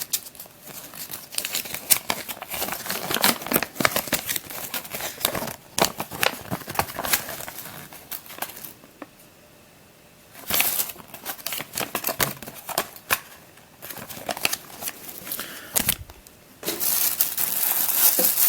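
Crinkly packaging rustling and crackling as a Square-1 puzzle is unwrapped by hand, with scattered clicks of handling. There is a quiet pause a little past the middle, and the crinkling grows louder and more continuous near the end.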